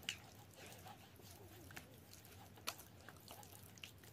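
Hands rubbing shower gel on unwetted skin: a few faint, sticky clicks and smacks over near silence.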